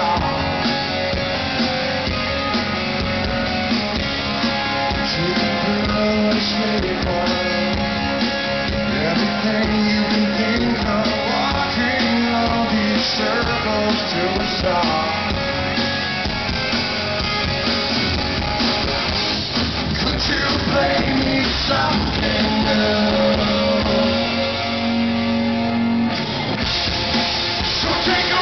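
Live rock band playing a song: a male lead vocal over electric guitars and a drum kit, amplified through the PA and recorded from the audience.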